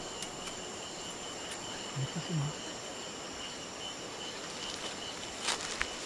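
Steady chorus of night insects, a pulsing high trill with a steadier, higher tone above it. About two seconds in come a few short low sounds, and near the end a few sharp crackles like footsteps in dry leaf litter.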